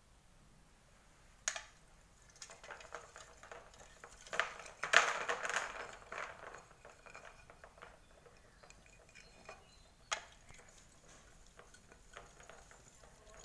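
Large plastic rosary beads and their metal chain clicking and rattling as they are handled, with a single click, then a burst of clatter about halfway through, and another single click later.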